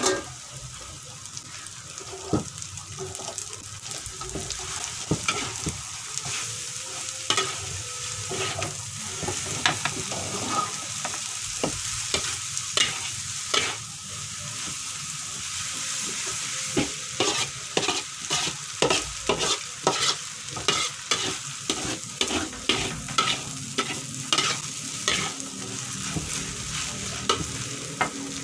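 Rice vermicelli frying in a metal wok with a steady sizzle, while a metal spatula stirs and tosses it, scraping and clanking against the pan. The spatula strokes come in a quick, regular run through the second half.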